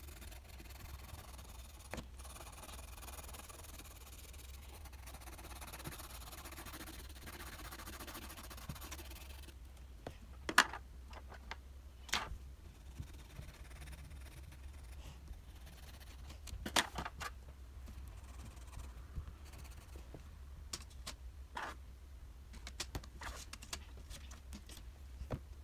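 Coloured pencil scratching across paper as an area is shaded in, a faint steady rasp, followed by a few sharp clicks and taps as pencils are handled, the loudest about ten seconds in.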